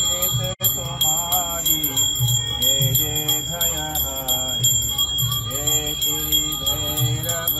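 Hindu devotional singing with a puja hand bell (ghanti) ringing without pause. The sound drops out for an instant about half a second in.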